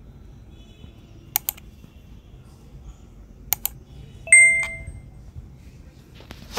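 Subscribe-button animation sound effect: two pairs of quick mouse clicks about two seconds apart, then a bright bell-notification ding that rings out for about a second. A short hiss comes near the end.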